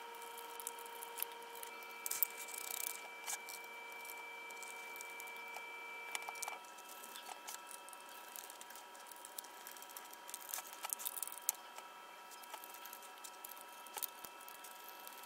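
Faint scattered clicks and light scrapes of a small precision screwdriver and plastic parts as a Samsung Gear VR headset is screwed back together. A faint steady high whine of several tones runs underneath, and part of it stops about six and a half seconds in.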